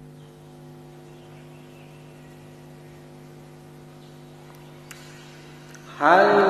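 Steady electrical hum with several even tones, with a faint click about five seconds in. Near the end a loud ringtone-like musical sound starts suddenly, its tones gliding up and then holding.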